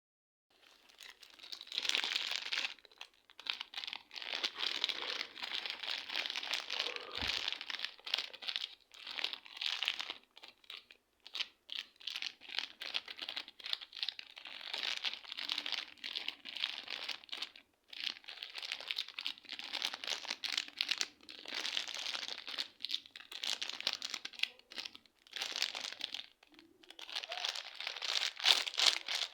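Slime being squeezed, pressed and poked by hand: a dense crackling that comes in bursts a second or two long, with short pauses between.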